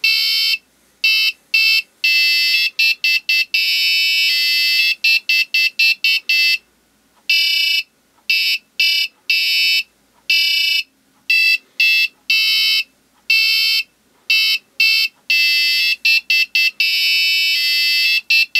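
An Arduino alarm clock's small buzzer plays its gentle wake-up melody, the first alarm sequence, set off when its photocell senses light. It is a string of high-pitched electronic beeps of varying length and pitch, with short gaps between notes and a few longer pauses.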